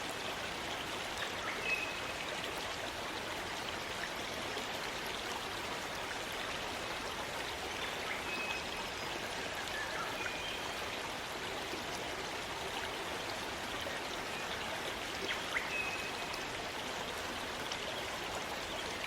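Rainforest stream running, a steady rush of water. A few faint, short, high chirps come through it now and then.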